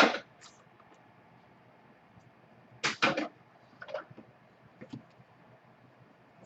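Hands handling and opening a small cardboard trading-card box: a sharp scrape at the start, a cluster of scuffs and rustles about three seconds in, and a few softer ones after.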